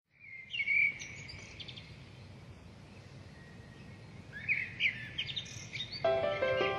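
Songbirds singing outdoors in two bursts of short chirps and calls over a steady low background rumble; instrumental music comes in near the end.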